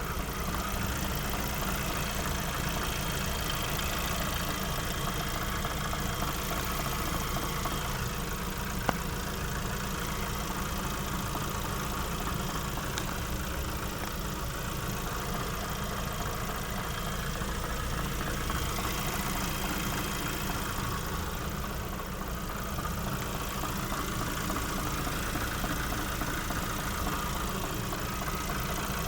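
Lada Vesta 1.6-litre engine idling steadily, with a knock from under the hood. A single sharp click comes about nine seconds in.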